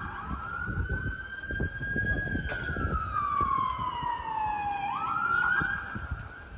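Emergency vehicle siren sounding a wail: it rises slowly over the first two seconds, falls in a long sweep, then climbs quickly back up about five seconds in and holds there.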